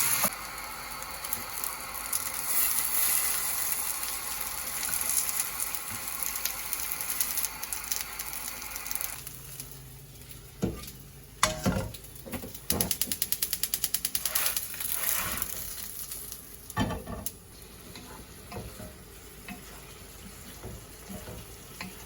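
Food sizzling in a frying pan for about nine seconds, then stopping; after that, a few knocks and clatters of kitchen handling and a quick run of rapid clicks.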